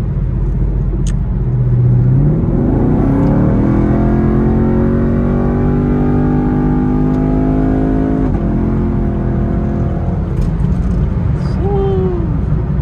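Chevrolet Camaro SS's 6.2-litre V8 under hard acceleration, heard from inside the cabin. The engine note jumps up in pitch about two seconds in and climbs steadily, drops at a gear change a little past halfway, then keeps pulling, over steady road and wind rumble.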